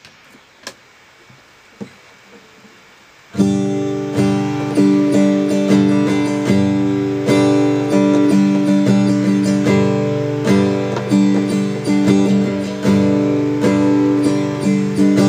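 Acoustic guitar playing chords in a steady run of plucked strokes, starting about three seconds in after a few faint clicks.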